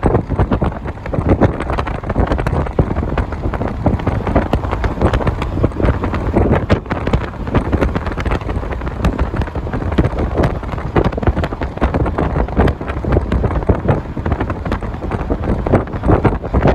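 Wind buffeting the microphone from a moving car, a loud, gusty rumble with road noise underneath.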